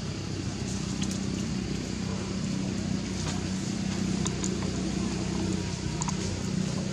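A steady low engine-like hum, with a few faint scattered clicks over it.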